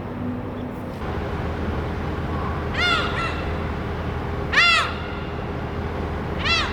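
A crow cawing three times, short arched calls a little under two seconds apart, over a steady low rumble.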